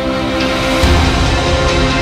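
Background music: held tones, with drums and a heavy bass coming in about a second in.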